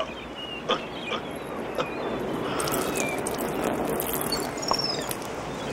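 Outdoor ambience: a steady wash of noise, with a few short, high bird chirps and a few light knocks.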